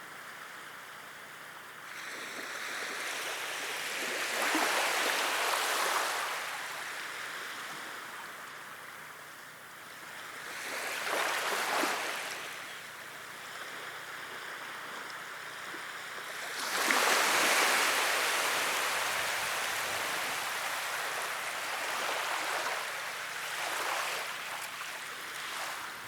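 Sea waves breaking and washing up the shore, the surf swelling and falling back four times, about every six seconds, the third wave the loudest.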